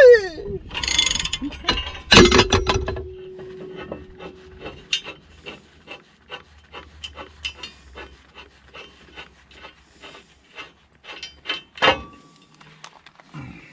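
Ratchet wrench clicking steadily, about three clicks a second, on heavy equipment repair work. A loud metal clank about two seconds in rings on briefly first, and there is a sharper click near the end.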